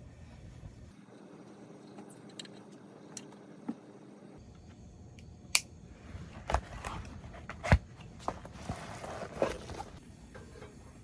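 Handling noises: a few sharp clicks and knocks in the second half, the loudest a little before the end, followed by a short rustle.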